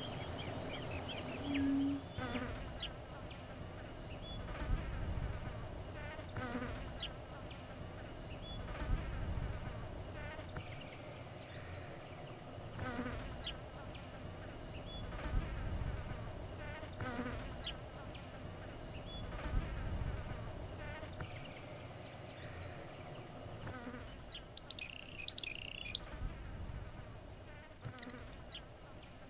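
Flies buzzing close to the microphone, with a thin, high, short bird note repeated steadily, about one and a half times a second, and a low rumble of wind.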